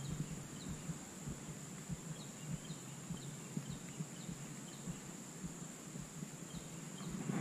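Outdoor ambience of a steady high-pitched insect drone, with short high chirps repeating every half second or so over a faint low rumble.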